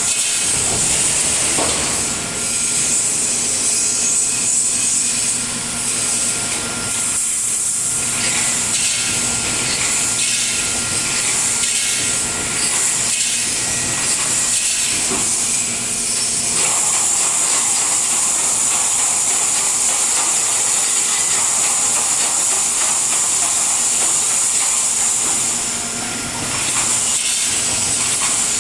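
Roll wire mesh welding machine running, a steady loud hiss with faint mechanical knocks and a hum underneath.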